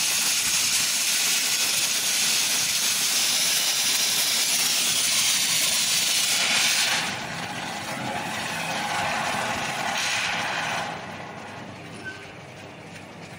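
Glassblowing torch flame hissing steadily as it heats a borosilicate glass tube. The hiss drops about seven seconds in, swells again briefly, then falls quieter near the end as the flame goes from a sharp blue jet to a softer yellow flame.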